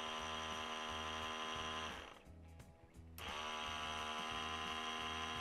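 Repaired Mitsubishi Lancer ABS pump (MK61 type) with its pump motor running in an actuation test: a steady electric whine that stops about two seconds in and starts again about a second later. The motor running shows that the C2116 pump-motor fault has been fixed.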